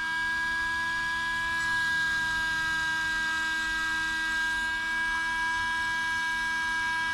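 Small electric cooling fan on the RC truck's motor heat sink running: a steady whine made of several held tones that does not change.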